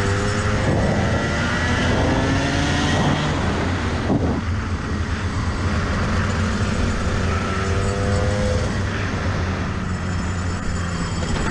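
Rotax two-stroke kart engine running on the throttle, its pitch rising as it picks up revs over the first few seconds and again later on.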